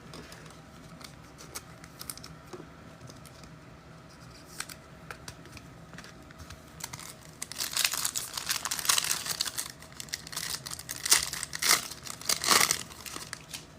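Trading-card pack wrappers crinkling and tearing as packs are ripped open, loudest in the second half, after a stretch of light clicks from cards being handled.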